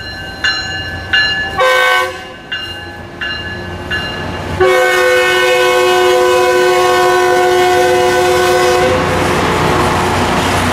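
Tri-Rail commuter train's horn sounding one long, steady blast of about four seconds, starting near the middle. Before it come short repeating tones about every two-thirds of a second, and after it the rumble of the train running through the grade crossing.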